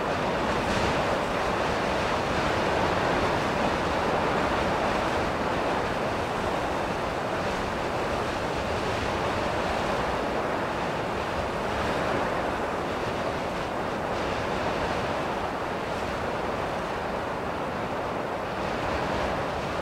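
Ocean surf washing steadily on a shore, an even rushing noise that swells and eases gently.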